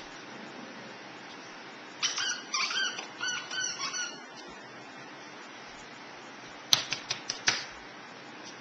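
Dogs tussling over a plush fox toy: a quick run of high-pitched squeaks about two seconds in, then a few sharp clicks and knocks near the end.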